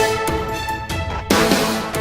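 Background theme music with a steady beat and a regular accent about every second and a half.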